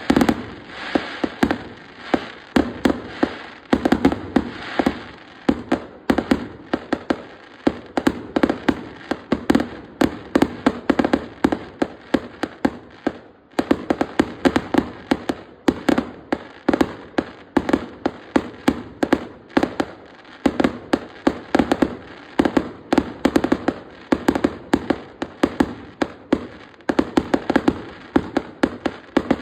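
Display fireworks going off in rapid succession: a dense, continuous barrage of bangs and crackling bursts, several a second, with a brief lull about halfway through.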